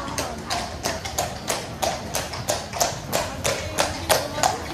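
A horse's hooves clip-clopping on a hard street at a walk, a steady run of sharp strikes about four a second, from a horse-drawn carriage.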